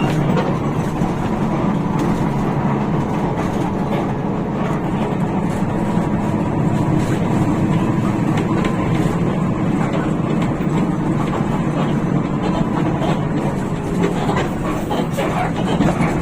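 Steady drone of a moving Hino RK8 bus heard from inside the cabin: the rear-mounted diesel engine running under way, mixed with road and body noise, with no distinct events.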